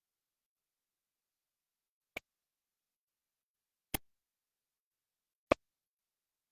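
Silence broken by three isolated sharp clicks, spaced a second and a half to two seconds apart; the last is the loudest.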